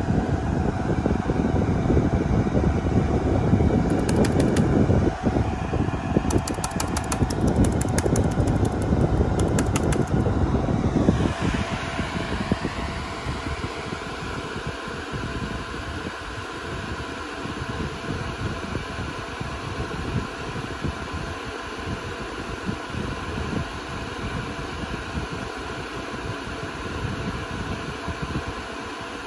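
Cooling fans of a Dell Compellent SCV2020 storage array running loud with a steady whir, then winding down about eleven seconds in, their pitch falling, to a quieter steady hum.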